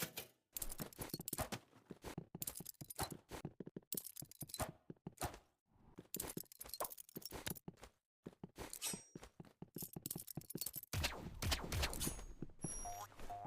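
Balisong (butterfly knife) being flipped: its metal handles and blade click and clack against each other in rapid clusters, with a brief pause about 8 seconds in. The clatter is busiest near the end.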